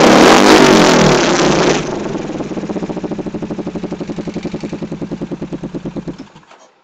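Yamaha Mio scooter's single-cylinder four-stroke engine through a Nobi aftermarket exhaust, held at a loud rev, then dropping sharply to a pulsing idle about two seconds in. The idle fades out near the end.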